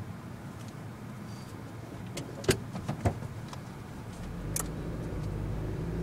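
Nissan NV200 van heard from inside the cabin, first standing with the engine running, then pulling away, its low rumble growing about four seconds in. Several sharp clicks come in the middle.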